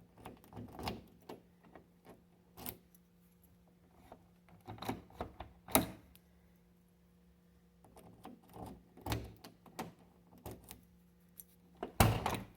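Scattered clicks, taps and small metallic rattles as the lock and handle rods inside a Jeep Comanche door are worked into their clips, with a louder knock near the end. A faint steady hum runs underneath.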